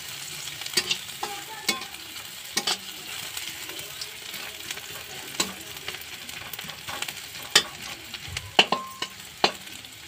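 Sliced onions sizzling in hot oil in a steel wok, with a steady hiss, while a metal spatula stirs them, scraping and clacking against the pan at irregular moments.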